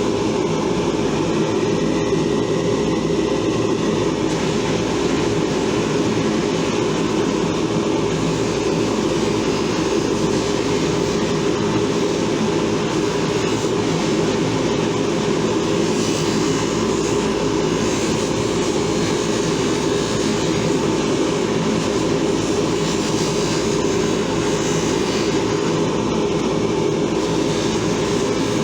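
A power tool's electric motor running steadily without a break, as rusty steel pliers are cleaned and polished on it.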